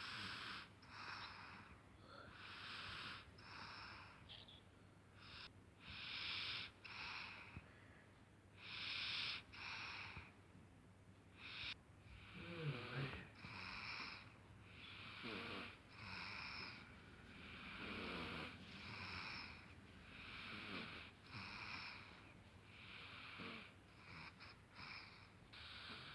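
Soft snoring: a steady series of hissy breaths, about one a second. Several breaths in the second half carry a faint wavering whistle-like tone.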